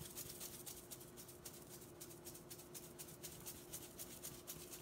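Garlic salt shaken from a shaker onto raw chicken wings: a faint, quick rhythmic rattle of several shakes a second.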